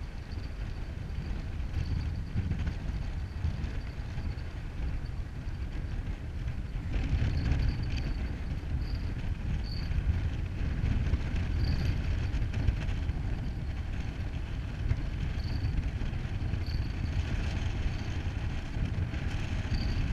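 Wind buffeting an action camera's microphone in a steady low rumble, growing stronger about a third of the way in, while a spinning reel is wound in.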